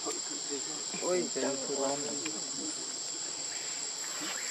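Insects droning steadily in one constant high-pitched tone. A short voice-like sound rises over it about a second in.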